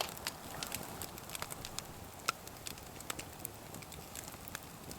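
Wood campfire crackling: irregular sharp pops and snaps over a faint hiss.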